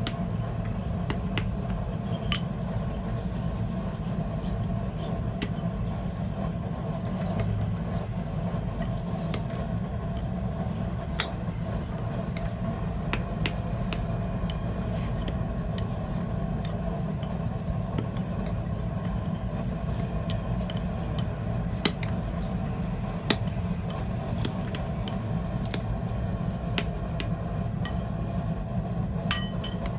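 A steady low rumble, like a forge burner running, with scattered light metallic ticks and two sharper taps a little past the middle.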